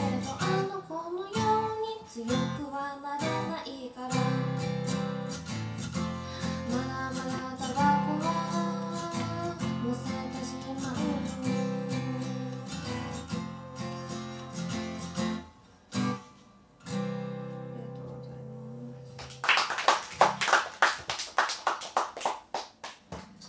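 Steel-string acoustic guitar strummed under a woman's singing, with a break in the song about two-thirds in and a final held chord; the song ends and a few seconds of scattered clapping follow, fading out near the end.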